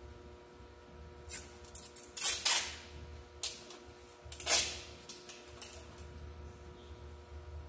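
Plastic product bottles being moved and set down on a store shelf: a handful of short scrapes and clacks, the loudest about two and a half seconds in and again about four and a half seconds in, over a steady hum from the building.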